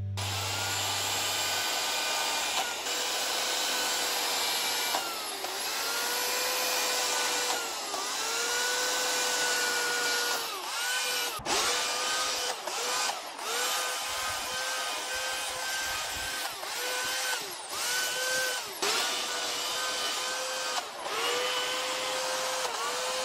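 Corded electric chainsaw running and cutting into pine. Its motor whine sags briefly every second or two as the chain bites, and it cuts out for a moment a few times about halfway through.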